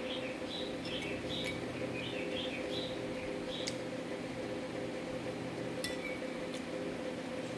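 Metal spoon clinking against a ceramic bowl: a few sharp clicks, one a little before the middle and two more near the end. Small birds chirp in quick runs during the first few seconds, over a steady low hum.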